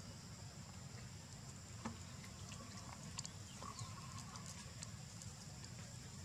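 Faint steady insect drone at two high pitches over a low rumble, with scattered soft clicks and taps, the loudest about two seconds in and just after three seconds.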